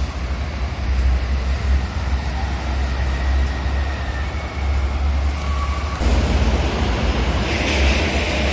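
Road traffic noise with a motorbike riding past close by, over a continuous low rumble. The noise grows louder and fuller about six seconds in, with a hiss building near the end.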